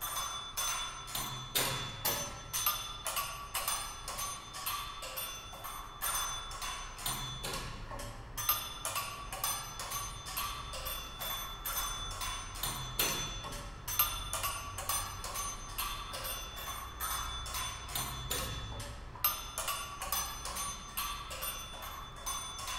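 Rapid, irregular taps and clicks, several a second, over a steady ringing tone, with the hard, wooden quality of struck mallet percussion.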